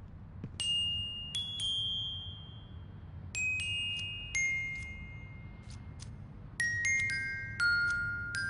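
High, clear metallic chime notes struck one at a time, each ringing on and fading away, in small groups of two to four that step down in pitch over the span.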